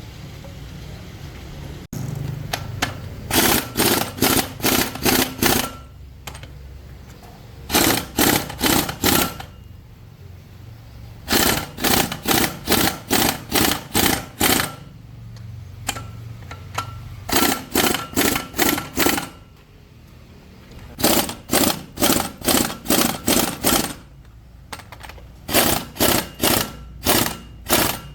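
Impact wrench fired in short, rapid pulses, in groups of about six to eight with pauses of a second or two between groups, over a low background rumble.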